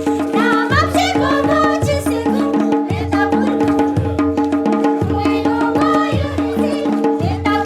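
Music: a wavering melody over a steady drone, with regular hand-drum hits.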